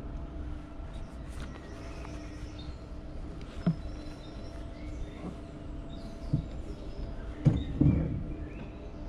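Wiegand alpine coaster sled running along its steel rail with a steady hum. A few sharp knocks come through, loudest near the end.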